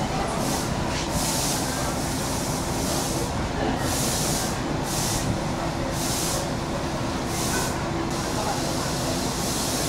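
Uerdingen railbus's underfloor diesel engines running steadily with a low hum. Short hisses come and go every second or so.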